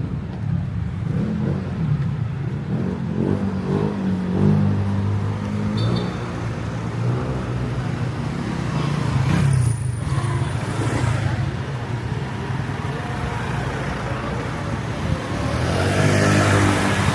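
Street traffic: engines of motor vehicles running close by and passing, their pitch rising and falling, loudest about a quarter of the way in, around the middle and near the end.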